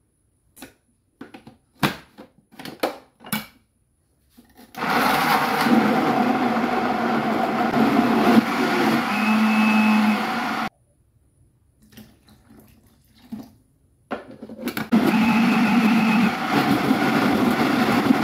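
SQ Professional countertop blender running, blending cooked carrots and turmeric in water. It runs for about six seconds, stops for about four, then starts again near the end. A few clicks and knocks come first as the lid is fitted onto the jar.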